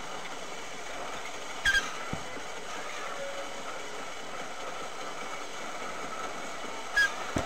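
Steady road and running noise of a moving vehicle, heard through a dashcam from inside the cab, with two short high squeaks, one about a second and a half in and one near the end.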